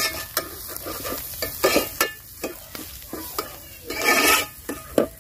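Metal ladle stirring and scraping shallots, green chillies and curry leaves frying in oil in a metal pot, with sizzling. The scrapes come at irregular intervals, the longest and loudest about four seconds in.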